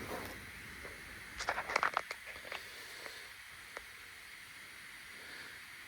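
Handling noise from a potted fruit tree and its packaging: a short patch of rustling with a few light clicks about one and a half to two and a half seconds in, then only a faint steady hiss.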